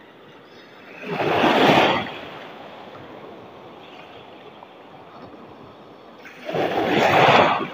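Surf: two waves break, each a rush of water about a second long, one about a second in and one near the end, over a steady wash of rough sea.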